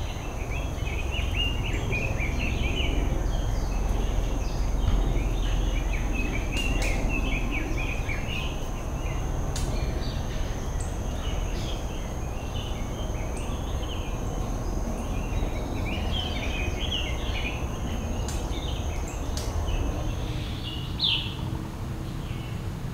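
Many small birds chirping and twittering in irregular bursts over a steady low rumble. A thin steady high tone runs underneath and stops near the end.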